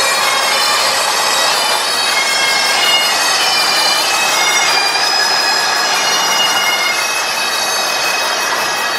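Bagpipes playing a tune, the melody stepping from note to note.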